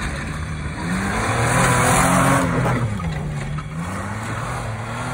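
Mitsubishi Pajero engine revving hard under load off-road, its pitch climbing over the first two seconds, sagging about three seconds in, then rising again as the throttle is worked.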